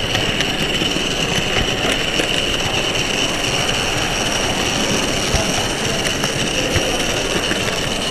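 Model railway train running along the layout's track, heard from on board: a steady whine with irregular ticks as the wheels pass over rail joints and points.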